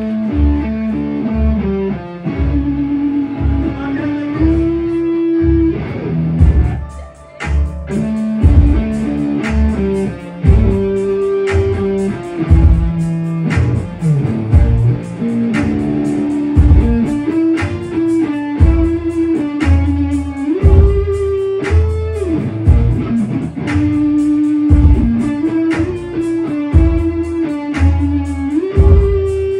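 Live band music: electric guitar and bass playing a repeating riff, with a steady beat coming in about six seconds in.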